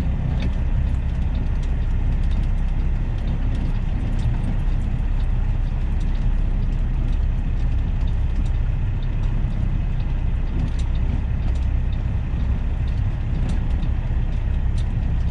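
Semi truck's diesel engine running steadily at low speed, a continuous low rumble.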